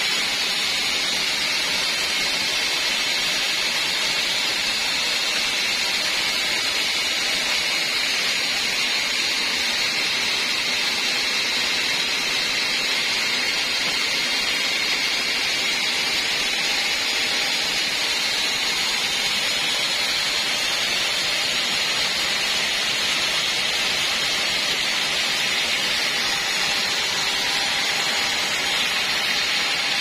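Sawmill band saw running steadily: a constant, unbroken hiss that does not rise or fall.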